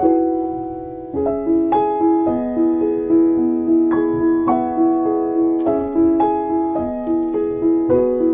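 Background music: a slow, gentle piano melody with notes struck about once or twice a second, each ringing and fading.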